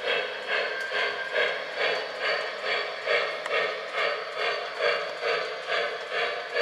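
Sound-equipped model 2-8-2 steam locomotive chuffing steadily as it runs, about two and a half chuffs a second.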